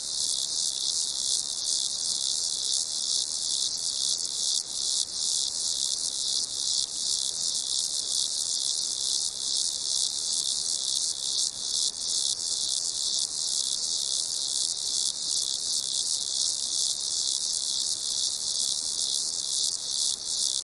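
Chorus of crickets chirping, a dense high-pitched trilling that pulses rapidly and holds steady, cutting off abruptly at the end.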